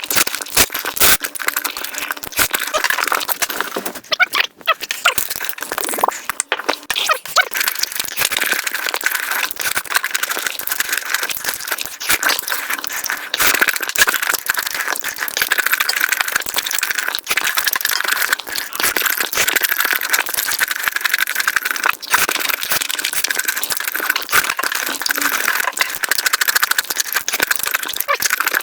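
Mukbang eating sounds played back at high speed: a dense, continuous crackle of chewing and crunching.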